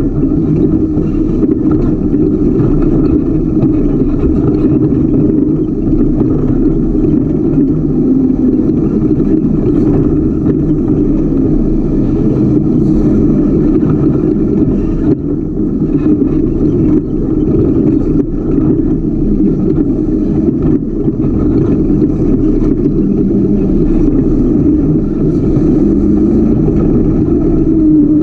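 Ultra4 race car's engine running hard and steady, heard from an onboard camera, with scattered knocks and rattles as the car crosses rough trail. Near the end the revs drop.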